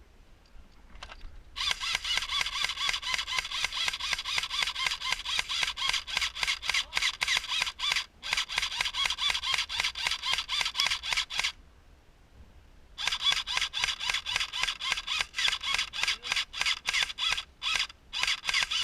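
Airsoft rifle firing long full-auto bursts, a rapid even rattle of shots. It stops briefly twice, once about eight seconds in and once for about a second and a half near the middle, then fires again until the end.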